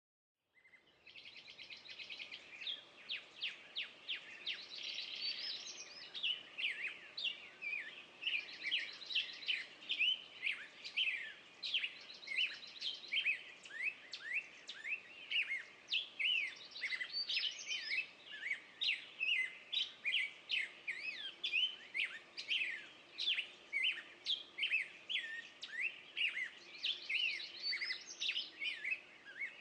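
Spring woodland chorus of many songbirds singing at once: a dense stream of quick chirps and sweeping notes, with buzzy trills now and then, starting in the first second.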